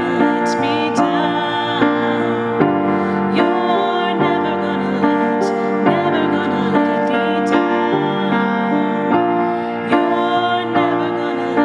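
A woman singing a slow worship song, accompanying herself on a grand piano with sustained chords.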